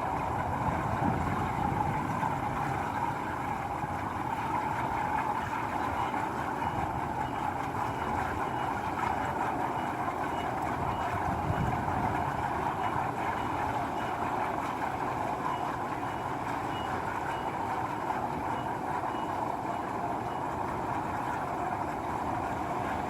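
Steady rushing roar of the fire heating a small pressurised camping gas cartridge as its liquid boils toward rupture. A faint high beep repeats about twice a second through the middle.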